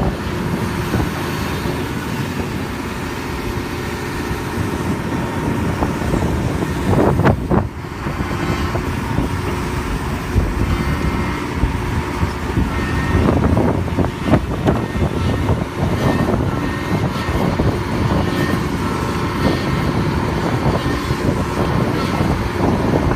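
Amphibious excavator's diesel engine running steadily while working, with a few louder sudden sounds about seven and fourteen seconds in.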